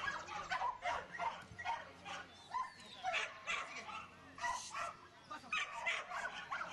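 Border collie barking over and over, many short barks in quick succession.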